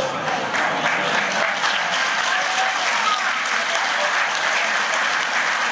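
Crowd applauding steadily, many hands clapping at once.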